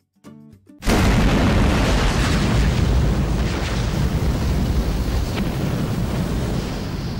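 A few short plucked notes, then about a second in a sudden loud explosion-like boom that turns into a long, rumbling rush of flames, slowly fading: a fireball sound effect for an animated logo.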